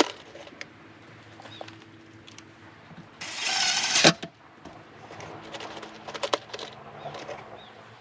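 Cordless driver running for about a second near the middle, driving a screw into wood, with scattered clicks and rattles of screws being handled around it.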